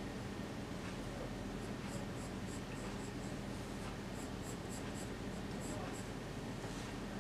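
Pencil scratching on drawing paper in short sketching strokes, over a steady low hum.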